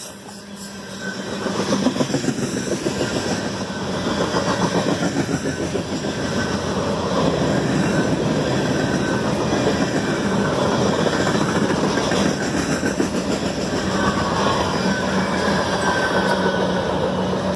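CSX freight train's autorack cars and a lumber-loaded flatcar rolling past at speed: a steady rumble of steel wheels on rail with a rapid clickety-clack.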